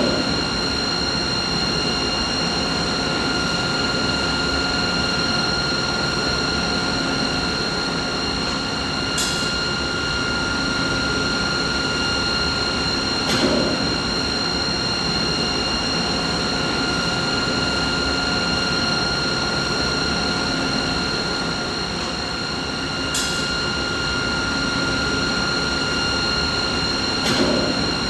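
A machine running steadily: an even mechanical noise with a constant whine near 1.4 kHz and its overtones above a rumble. A few faint clicks recur at even spacing, about every fourteen seconds.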